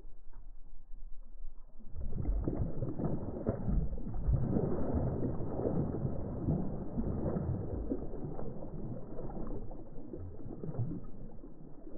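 A hooked smallmouth bass thrashing and splashing at the surface beside a kayak as it is brought to the net; a rapid, irregular run of splashes starts about two seconds in and carries on, easing a little near the end.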